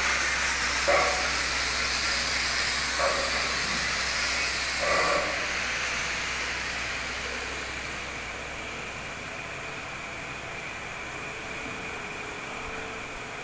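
Steady hiss of workshop background noise, louder for the first few seconds with three brief blips, then easing to a lower even hiss.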